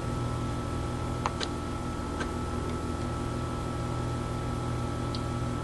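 Steady hum with a noisy fan-like floor, and a few light clicks of oscilloscope front-panel softkeys being pressed between one and two and a half seconds in.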